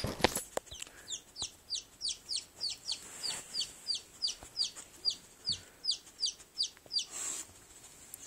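Baby chick peeping steadily: a long run of short, falling peeps, about three a second.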